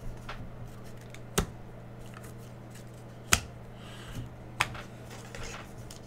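Panini Prizm basketball cards being handled and set down on stacks: a few sharp clicks and taps of card edges on the table, two of them louder, over a steady low hum.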